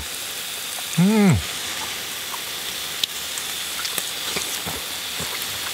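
Slices of hanwoo beef sizzling steadily on a hot grill grate, with a few small pops scattered through it. About a second in, a short hum of enjoyment from the eater that rises and falls in pitch.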